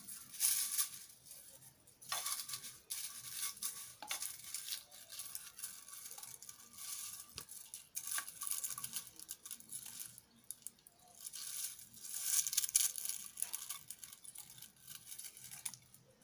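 Metal spoon scraping and pushing oily, cooked plantain leaves out of a granite-coated pan into a paper-towel strainer, in repeated bursts of scratchy scraping with light clicks and paper rustle.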